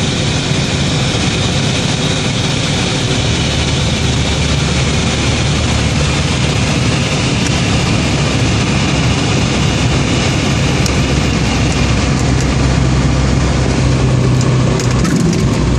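Cabin noise of a light high-wing aircraft landing: the engine and propeller run steadily under a rush of wind. Near the end the wind hiss drops away, a low engine hum comes forward, and short rattles begin as the plane rolls on the runway.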